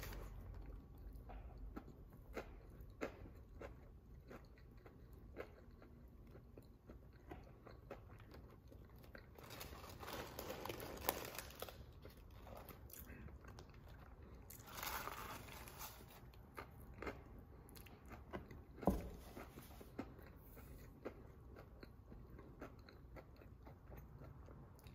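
Close-miked chewing and crunching of a crispy fried chicken and bacon sandwich: a steady run of small crackles, with louder crunchy stretches about ten and fifteen seconds in.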